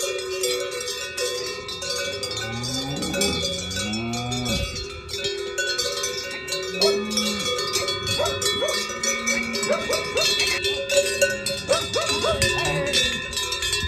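Cowbells on a herd of cattle, many bells clanking and ringing together at once, with several low moos from the cows among them.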